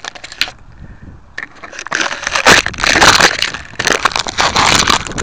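Rustling, crackling noise on the microphone of a small camera mounted on an RC plane, full of sharp clicks. It gets loud about two seconds in and stays dense.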